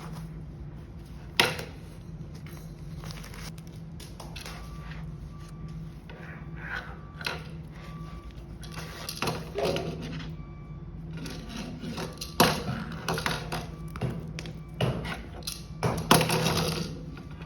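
Handling noises from a bag being unboxed: rustling with a few sharp clicks and knocks, sparse at first and busier in the second half, over a steady low hum.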